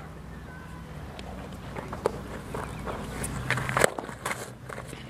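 Footsteps and shuffling on a dirt softball infield, with a few sharp knocks, the loudest just before four seconds in. A steady low hum runs underneath.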